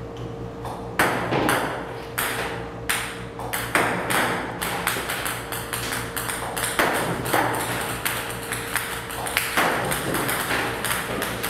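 Ping-pong balls fed by a table tennis robot clicking sharply as they bounce on the table, at irregular intervals of one to three a second, over a faint steady hum.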